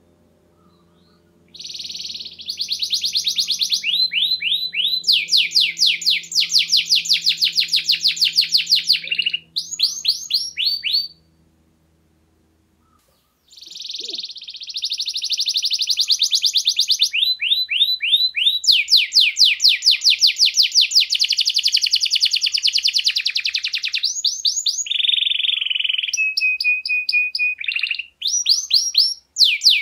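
Domestic canary singing in long trilling phrases of rapid repeated high notes. It goes silent for about two seconds about halfway through, then sings on with a brief break near the end.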